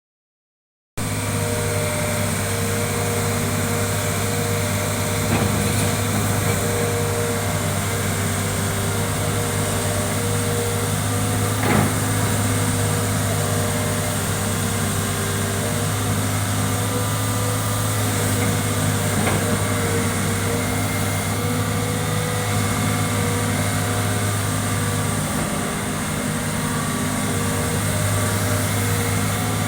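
Hitachi ZX210 excavator's diesel engine running steadily, starting about a second in, with a couple of short knocks along the way.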